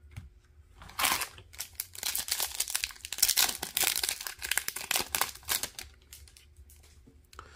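Foil wrapper of an Upper Deck hockey card pack crinkling and tearing as it is ripped open: a dense run of sharp crackles from about a second in, dying down after about six seconds.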